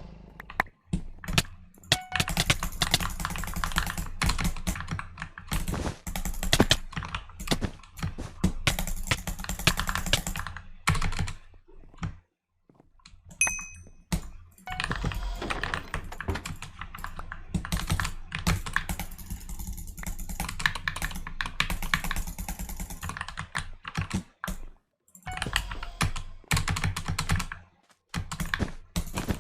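Mechanical keyboard with freshly lubed switches clacking in rapid, uneven runs of keystrokes, broken by a few short pauses.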